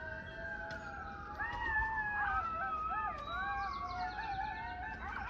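A pack of coyotes howling and yipping together: several overlapping calls glide up and down, with quick warbling yips about two seconds in and again near the end. The chorus is set off by a passing emergency siren.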